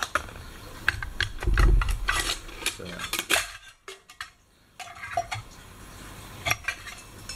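Metal clinks and knocks of a canteen cup and cup stove being handled and unpacked, with the plastic canteen sliding out of the cup. A heavy thump about a second and a half in is the loudest sound.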